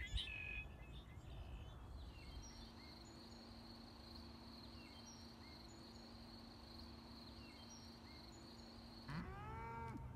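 A faint, steady high insect trill with small repeated bird chirps, then about nine seconds in a cow moos loudly.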